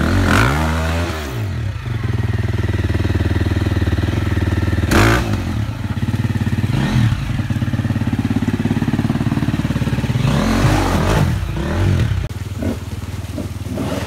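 Off-road dirt bike engine running at low revs, with about four short throttle blips that rise and fall in pitch as the bike is worked up a rocky ledge.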